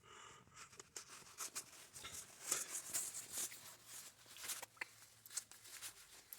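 Faint, scattered clicks, light taps and scratchy rubbing, coming irregularly several times a second.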